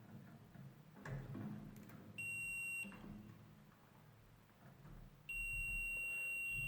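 Electric continuity tester beeping twice with a steady high tone, first for about two-thirds of a second and then for well over a second, as the probes bridge an oven heating element: the element has continuity and works. A few faint handling knocks come about a second in.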